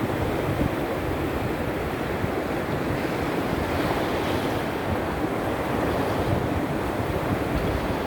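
Baltic Sea surf in a small storm: waves washing onto the shore in a steady, unbroken rush, with a low rumble underneath.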